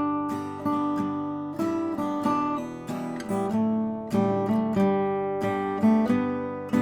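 Instrumental background music of plucked strings: notes and chords struck about every half second to second, each ringing out and fading.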